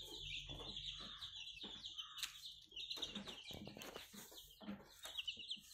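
Young country chicks, about one and two weeks old, peeping continuously in rapid, short, high-pitched chirps, with a few soft taps among them.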